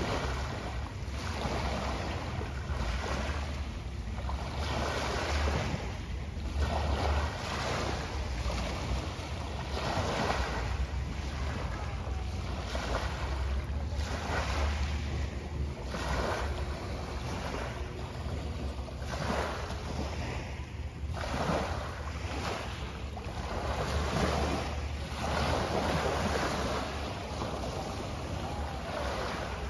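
Small waves washing onto the shore in repeated surges every second or two, with wind buffeting the microphone as a low rumble.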